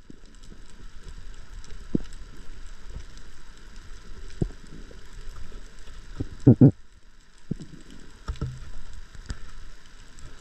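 Underwater ambience on a rocky reef: a steady hiss with scattered sharp clicks and crackles, and a loud low double whoosh about six and a half seconds in.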